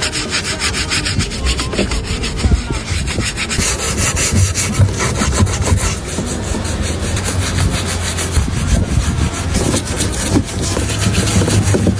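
Rapid, continuous back-and-forth rubbing strokes on a hard surface, with a low hum underneath that grows stronger in the second half.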